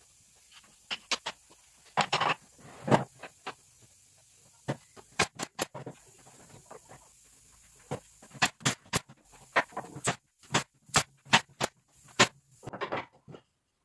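Irregular sharp clicks and knocks of wooden pieces being handled and set against each other, with a quicker run of taps in the second half.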